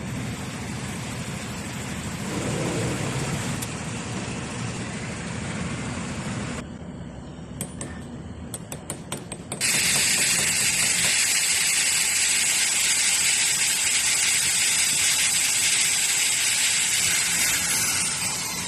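Mechanical workshop noise: a steady running sound with a low hum, then a few sharp clicks, then from about ten seconds in a louder, steady, high hissing whir from a power tool or machine at work.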